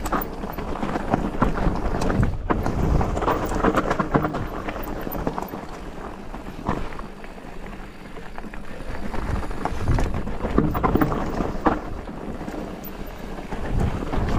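Polygon Siskiu T8 mountain bike riding down a rocky singletrack: tyres rumbling over rock and dirt, with frequent sharp knocks and rattles from the bike over the bumps, and wind buffeting the microphone. It goes quieter for a couple of seconds around the middle, then picks up again.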